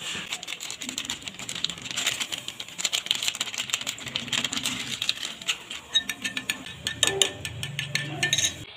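Metal spoon clicking rapidly against the side of a bowl while beating raw eggs, the clicks cutting off abruptly near the end.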